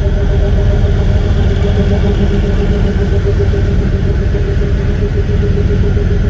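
Narrow-gauge diesel locomotive running as it rolls slowly past, hauling its coaches: a steady engine drone over a low rumble, with a held mid-pitched tone.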